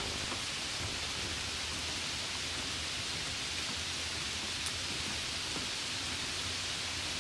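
Steady hiss of falling rain, even throughout, with a faint low hum underneath.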